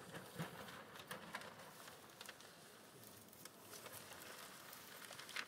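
Faint, scattered rustling and crackling of a large paper poster being unrolled and held up.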